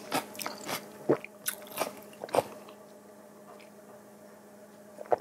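Close-miked mouth sounds of drinking: short wet sips and gulps, about six in the first two and a half seconds, then quieter.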